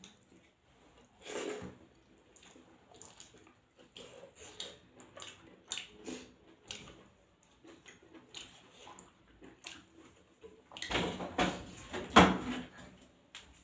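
Close-up eating sounds: chewing and wet mouth smacks on goat tripe curry and rice, with soft squelches of a hand mixing rice on a steel plate, as irregular short clicks with a louder stretch near the end.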